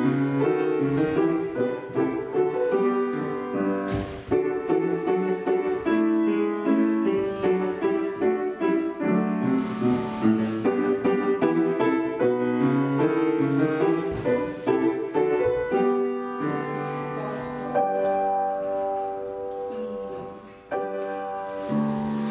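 Piano playing classical-style accompaniment for ballet barre exercises: a run of quick-changing notes, settling into slower, held chords about two-thirds of the way through, with a brief dip near the end before a new chord.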